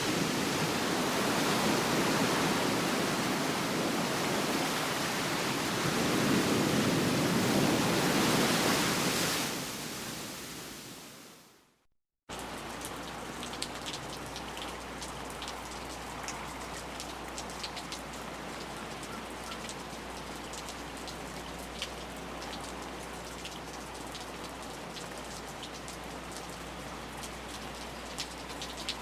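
Heavy, dense rain that fades out about ten seconds in, followed after a brief silence by lighter rain with separate drops ticking, over a low steady hum.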